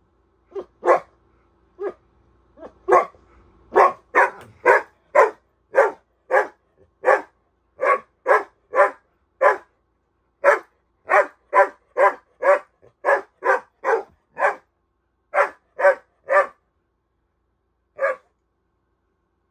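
Bernese Mountain Dog barking in play, a long string of short barks coming up to about two a second at its fastest. The barking stops a few seconds before the end, with one last bark near the end.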